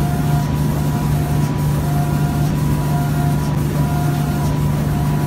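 Five-axis automatic door-spraying machine and its spray booth running: a loud, steady machine hum with a rushing, hissing air noise, and faint short tones repeating about once a second.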